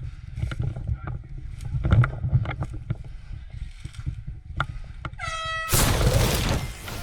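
Low rumbling microphone noise with scattered sharp clicks and knocks. About five seconds in, a short horn-like tone sounds for about half a second, then a loud burst of rushing noise lasts about a second.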